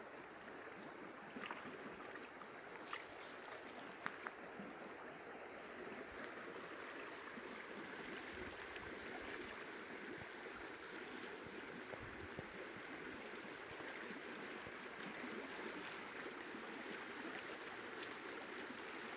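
Steady rushing of flowing water, with a few faint clicks.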